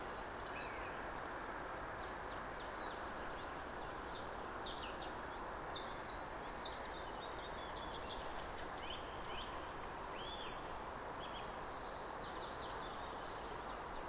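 Songbirds singing in a steady run of short chirps, trills and quick rising and falling notes, over a steady low background rumble.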